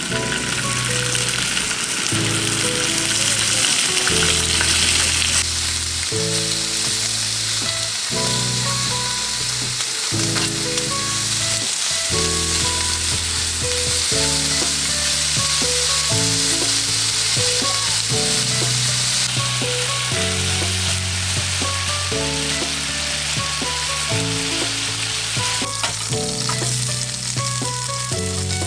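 Food frying and sizzling in a pan, a steady hiss, under background music with a repeating bass line and chords.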